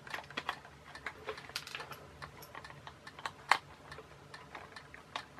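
Light, irregular clicks and taps of a hard plastic toy truck body and its wheels being handled and turned over, with one sharper knock about three and a half seconds in.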